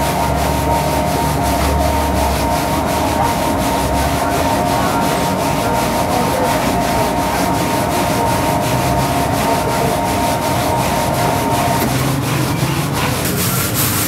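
A metal sheer yakh (Afghan hand-made ice cream) pot being spun by hand in a bed of salted crushed ice, grinding and scraping against the ice in a steady, rhythmic rub. The empty pot is being turned to chill it before the milk is poured in.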